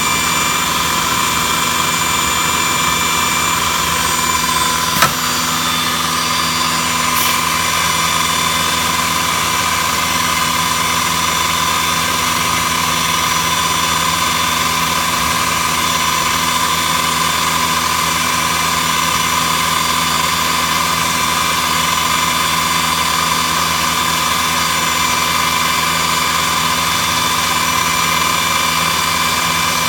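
CNC router running steadily: a constant whine of its motors over even machine noise, with one sharp click about five seconds in.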